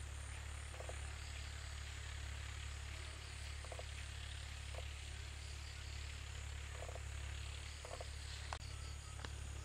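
Open-field ambience: a steady low drone under a faint high insect buzz, with a handful of short calls from a small animal at irregular moments and a single sharp click near the end.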